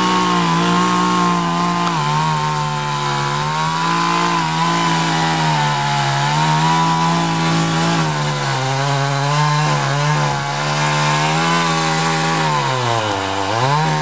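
Chainsaw running under load as it cuts through a tree trunk for felling. The engine note wavers slightly throughout, then dips low near the end before picking back up.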